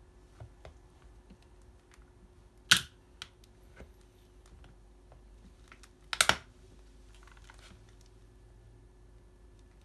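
Track spike shoes pressing and grinding on a plastic calculator: scattered faint clicks with two loud sharp clicks about three and a half seconds apart, the second a quick cluster.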